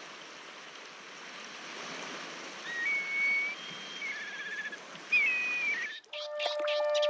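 Black kites calling a few times: whistled calls that drop into a quavering, whinnying tail, over a steady rushing background. Music begins suddenly about six seconds in.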